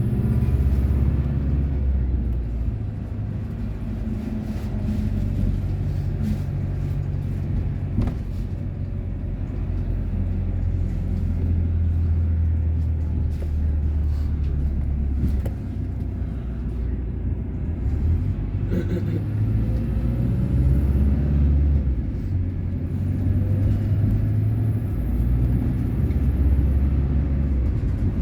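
Low, continuous engine rumble of heavy vehicles or machinery, rising and falling, with a couple of sharp knocks.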